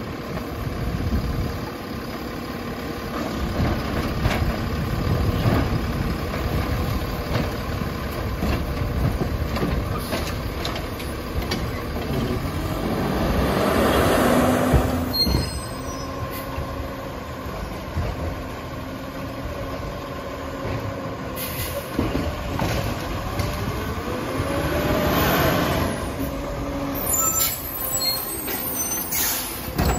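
Labrie Expert automated side-loader garbage truck on a Crane Carrier chassis at work, its diesel engine running steadily and rising in level twice, about the middle and again near the end. Air-brake hisses and a few sharp clunks come in the second half.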